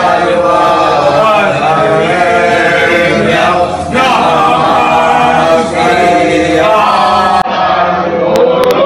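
A group of men chanting a devotional hymn in unison, with long held notes broken by two short pauses for breath.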